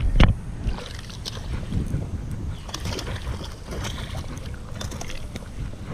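Wind rumbling on the microphone, with a couple of loud knocks right at the start and scattered light clicks.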